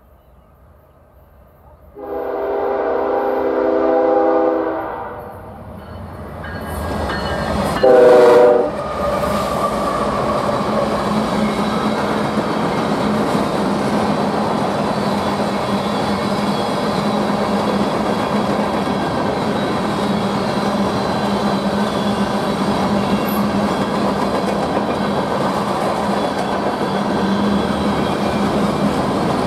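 A freight locomotive's five-chime Nathan K5HL air horn sounds one long blast and then a short, louder one about eight seconds in. After it comes the steady rumble and clatter of empty covered hopper cars rolling past on the rails.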